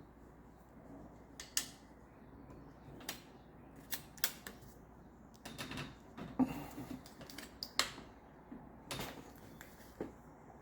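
Irregular metallic clicks and clinks of hand tools working on bicycle parts, about a dozen sharp knocks spread unevenly, with a short cluster about six seconds in.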